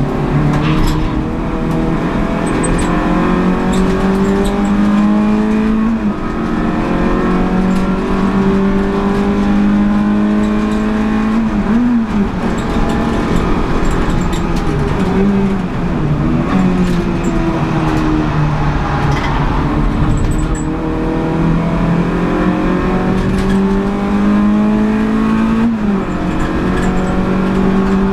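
Renault Clio Sport 182 race car's 2.0-litre four-cylinder engine under hard racing use, heard from inside the cabin. The engine note climbs as it revs out, then drops back at each gear change, about every few seconds.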